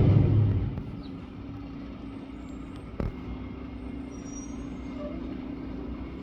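A road vehicle going by, loud at first and fading away within the first second, then a steady low engine hum of traffic with one sharp knock about three seconds in.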